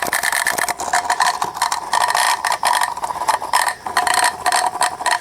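Small electric water transfer pump running weakly and intermittently, its hum breaking off and returning with rattling, as it stalls instead of spinning freely: the fault lies in the pump itself, which the owner suspects is too tight inside.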